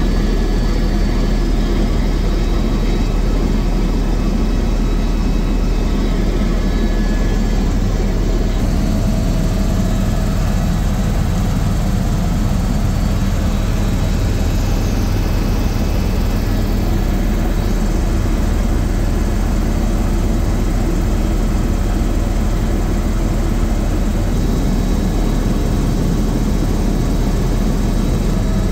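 Helicopter's rotor and engine running steadily in flight, heard from inside the cabin: a loud, even drone with a strong low throb.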